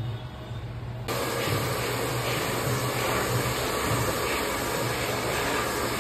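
Handheld hair dryer blowing a steady rush of air. It starts abruptly about a second in.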